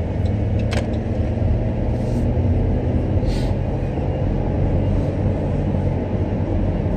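Dodge Grand Caravan minivan heard from inside the cabin, pulling away: a steady low engine and road hum, with a single sharp click about a second in.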